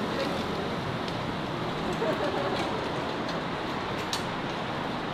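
Steady city street noise with faint distant voices and a few short, sharp ticks, the loudest about four seconds in.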